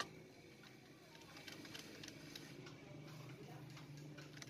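Faint, scattered light clicks and ticks of small metal parts being handled: transmission shafts and gears being fitted into a motorcycle crankcase.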